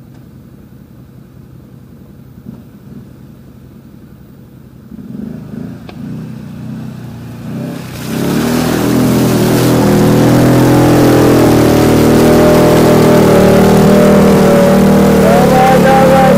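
ATV engine running low and quiet, then revved up from about five seconds in. From about eight seconds it runs loud at high revs, held steady, and steps up a little in pitch near the end.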